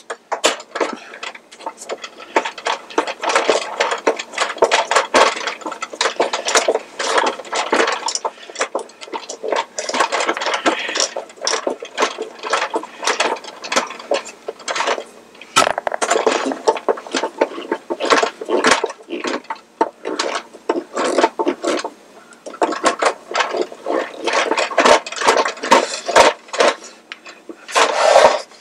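Screwdriver working the screw on the end of a Mr. Christmas musical carousel's axle, with the tin top held and shifted under the hand: a dense, irregular run of clicking and scraping, with a couple of brief pauses past the middle. The screw is loosening, but a nut in the base spins with it.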